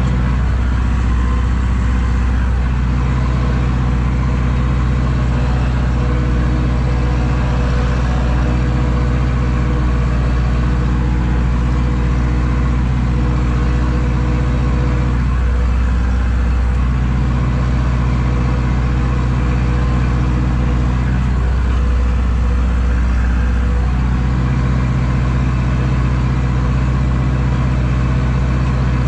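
Zetor tractor's diesel engine running steadily as the tractor drives across a field, heard from inside the cab. Its note shifts slightly twice, around the middle and toward the end.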